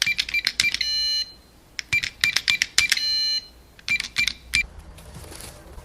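Three runs of quick clicks, each click with a short high beep, about four to five a second. The first two runs end in a held electronic ringing tone of about half a second. The sound resembles keys being pressed on a cash register or keypad.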